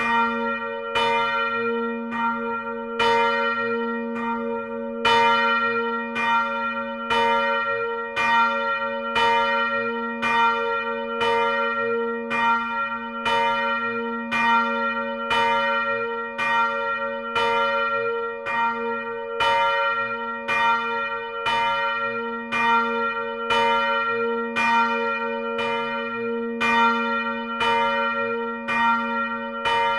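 Church bells of the Lutherkirche in Hamburg-Wellingsbüttel ringing together, strokes following one another about once a second over a steady ringing hum.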